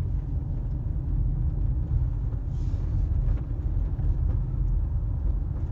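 Steady low rumble of a car on the move, engine and road noise, with a brief hiss about two and a half seconds in.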